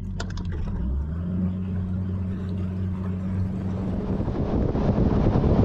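Bass boat's outboard motor running with a steady low hum, a few light clicks at the start. About four seconds in, rushing wind and water noise builds and grows louder as the boat picks up speed.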